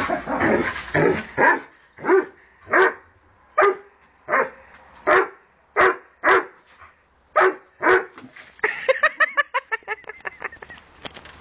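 Dog barking over and over at a garden hose, single loud barks coming about every half to one second, then a fast run of short barks from about nine seconds in.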